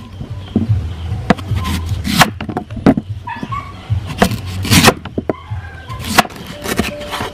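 Cleaver chopping a peeled raw green mango on a wooden cutting board: sharp knocks of the blade hitting the board, roughly one a second at an uneven pace.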